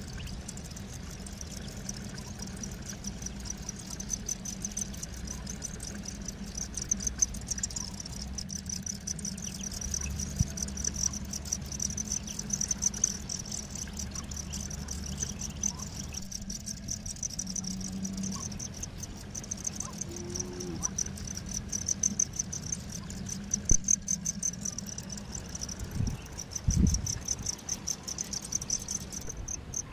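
Crickets chirping in a continuous fast, high-pitched trill, over a low steady hum.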